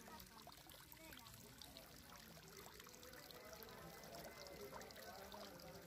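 Faint trickling and splashing of water from a small homemade fountain made of a pipe drilled with holes, its jets falling into a shallow model water channel.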